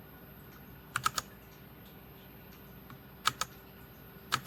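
RK Royal Kludge RK61 mechanical keyboard keys pressed in small clusters of sharp clicks: three quick ones about a second in, two more a couple of seconds later, and another near the end. These are key combinations being pressed to step through the keyboard's RGB lighting patterns.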